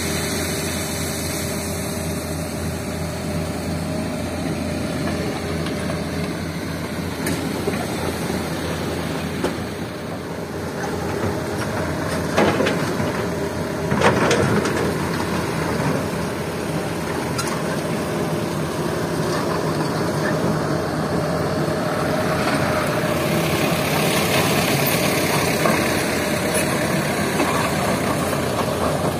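Diesel engines of a Hitachi excavator and a dump truck running steadily, with two sharp knocks about twelve and fourteen seconds in. The running gets a little louder and brighter near the end.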